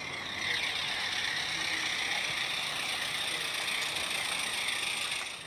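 Roundhouse Bertie 16mm-scale live-steam locomotive running with a short freight train: a steady, fast, fine clatter and hiss of steam exhaust and wheels on the track. It grows louder about half a second in and stops abruptly at the end.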